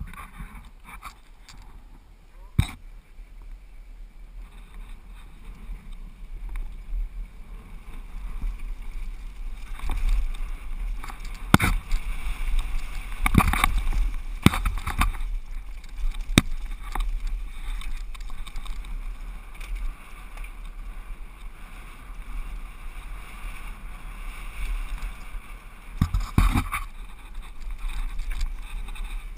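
Mountain bike descending a dirt downhill trail: wind rumbling on the camera microphone with the hiss of tyres on loose dirt, and sharp rattles and knocks from the bike over bumps, bunched in the middle and again near the end.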